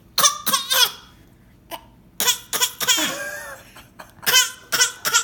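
A young child's pretend coughs: high-pitched, laugh-like vocal bursts in three short runs with pauses between.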